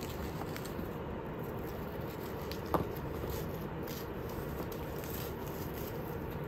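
Soft scrapes, rubs and small clicks of a tortoiseshell cat biting and clawing at the pink end of a cat-wand toy, over a steady background noise, with one brief louder click a little under three seconds in.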